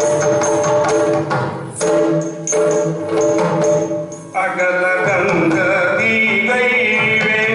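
Yakshagana music: drums and metal percussion keep a beat over a steady drone. About four seconds in, a singer's voice enters and carries the melody over the accompaniment.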